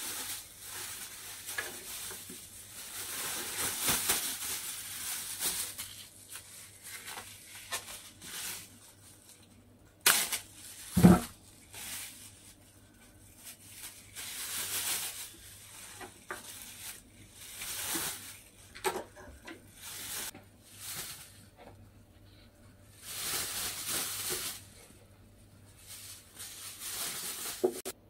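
Thin plastic bags rustling and crinkling as pieces of cut mushroom are packed into them, in irregular bursts. A couple of sharp knocks about ten and eleven seconds in, the second the loudest sound.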